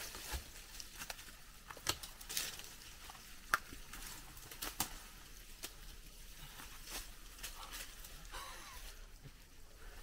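Footsteps climbing through dry leaf litter and twigs: faint, irregular crunches, crackles and snaps, the sharpest about three and a half seconds in.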